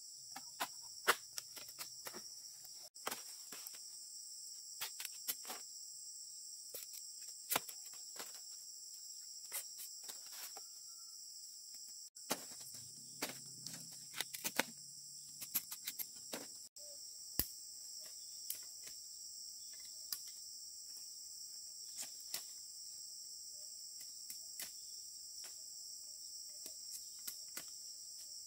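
Steady, high-pitched chorus of insects, with scattered sharp clicks and knocks over it.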